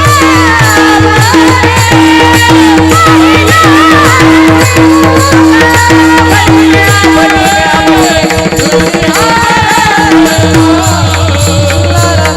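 Marathi Warkari devotional abhang music: a gliding melody over a steady held drone, with dense hand-drum strokes and jingling percussion.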